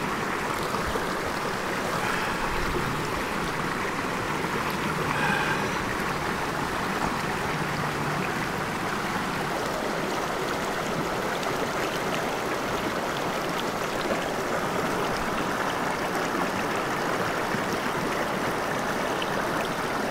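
Shallow stream running, a steady rush of water.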